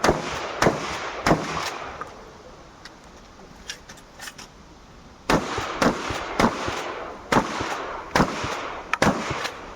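Shotgun firing in quick succession during a practical shooting stage: three shots about two-thirds of a second apart, a pause of about three seconds with a few faint clicks, then seven more shots over about four seconds.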